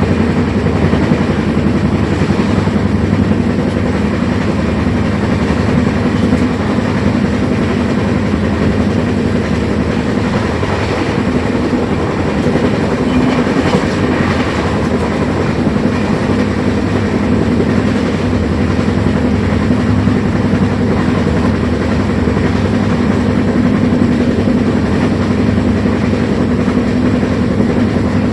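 A train running along the track, a steady rumble that holds at the same level throughout.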